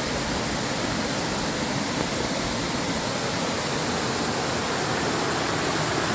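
Waterfall rushing steadily, a constant dense roar of falling water.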